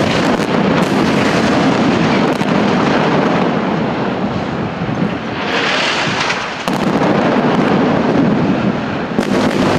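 Airstrike explosions on city buildings: a sudden loud blast, then a long continuous rumble, with further blasts about two-thirds of the way through and again near the end.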